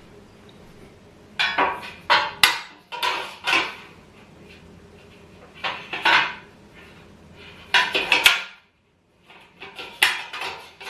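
Clusters of clattering knocks and clinks from parts and tools being handled while assembling a dining set, in groups a second or two apart.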